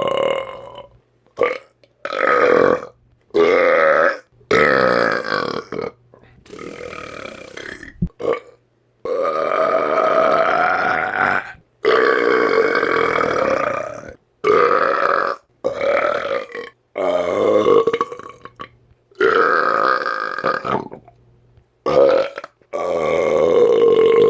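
A man belching over and over: about a dozen long, loud, deliberate burps one after another with short gaps between them, several with a pitch that bends up or down as they go.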